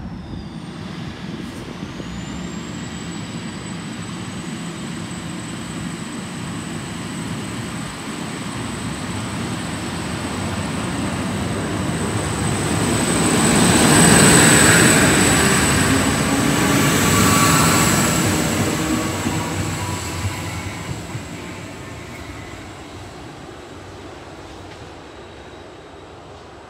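Endeavour-class diesel railcar set pulling out and passing close by: the diesel engine note builds as it accelerates, with a high steady whine that rises in pitch over the first few seconds. It is loudest as the cars go past about halfway through, peaking twice, then fades as the train moves away.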